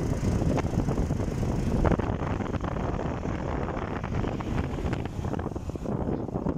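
Wind buffeting the microphone during a ride on a moving vehicle, with the vehicle's running noise underneath as a steady, uneven rumble.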